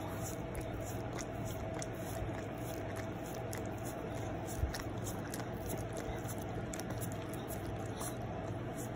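A pug licking a hand right at the microphone: a run of wet smacking and lapping clicks, with a single soft bump about halfway through.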